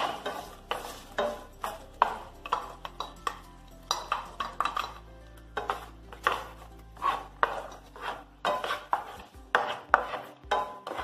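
A wooden spatula stirs corn kernels and fenugreek leaves around a non-stick frying pan, scraping and knocking in irregular strokes about two a second.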